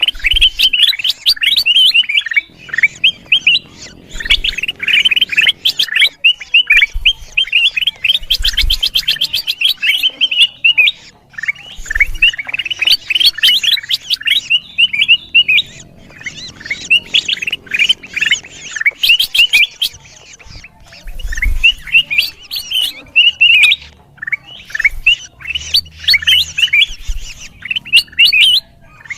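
Kutilang emas bulbul calling noisily: rapid, busy chattering chirps coming in bouts with short breaks between them.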